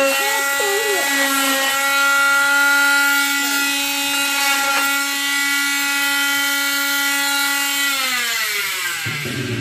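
Oscillating cast saw running with a steady high whine as it cuts through a leg cast. About eight seconds in it is switched off and its pitch slides down as it winds to a stop.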